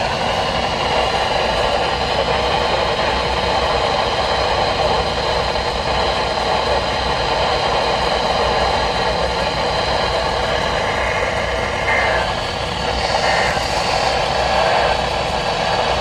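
Heavy static hiss from a radio receiver on a weak, noisy signal, with faint tones buried in it and a few short blips near the end.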